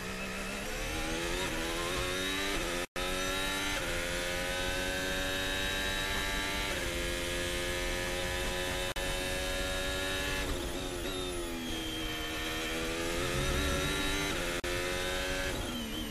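Onboard sound of a Ferrari Formula 1 car's 1.6-litre turbocharged V6 hybrid engine at racing speed: the pitch climbs through the gears, holds high, falls as the driver lifts and downshifts for a corner about two thirds of the way in, then climbs again. The sound cuts out for a moment about three seconds in.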